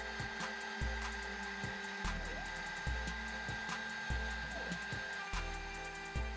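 Background music with a steady beat and a deep, pulsing bass.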